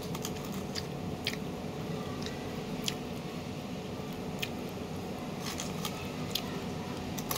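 Close-up chewing of broccoli, with irregular wet mouth clicks and smacks.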